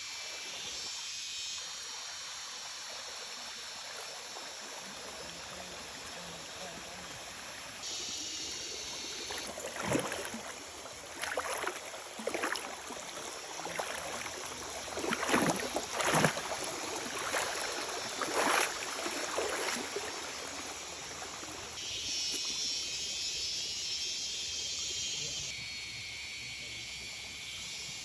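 Running water with a steady rushing hiss, broken between about ten and twenty seconds in by a series of sharp, louder splashing sounds.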